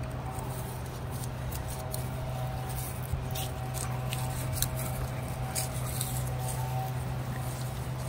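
Dogs rummaging through dry fallen leaves and brush, with scattered crackles and snaps of leaves and twigs, the sharpest a little past the middle. A steady low hum runs underneath.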